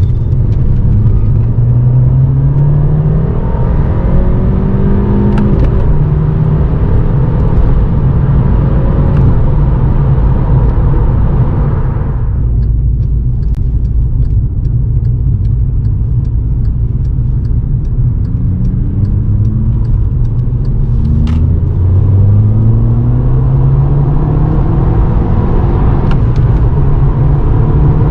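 Volkswagen Scirocco 2.0 TSI turbocharged four-cylinder engine and aftermarket exhaust, accelerating through the gears, its note rising in pitch and dropping back at each upshift. It eases off about twelve seconds in, then pulls up through the gears again.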